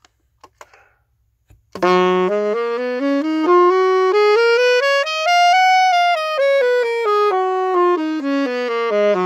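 Saxophone playing a scale practice run: after a few faint clicks, it starts about two seconds in, climbs note by note over two octaves, then steps back down and holds the low starting note.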